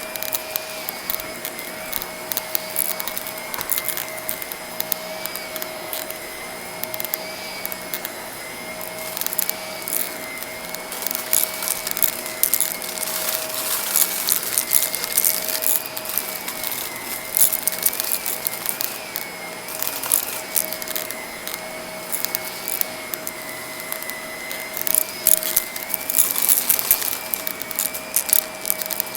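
Vacuum cleaner running on a rug with a steady, slightly wavering motor whine, while bits of crunchy debris rattle and click up into it in many quick ticks.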